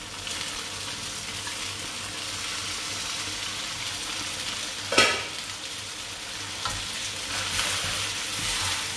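Rice vermicelli and mustard greens sizzling in a hot steel wok while a wooden spatula stirs them, with a brief loud scrape about five seconds in.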